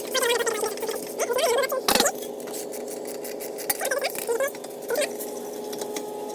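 Socket wrench turning out the 17 mm brake caliper bolts on a 2014 Lexus IS350: squeaking and clicking, with one sharp knock about two seconds in, over a steady hum.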